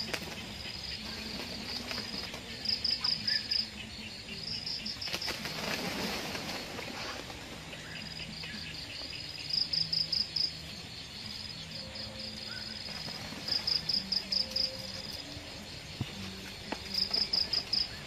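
Insect chirping in short, high trills of five or six quick pulses, repeated every few seconds over a faint low hum.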